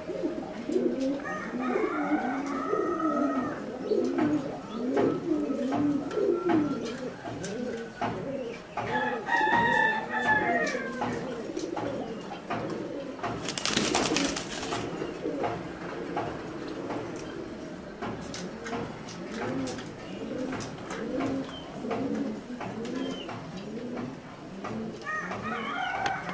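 Several pigeons cooing, their low coos overlapping throughout. A few higher-pitched calls come in between, and there is a brief burst of noise about fourteen seconds in.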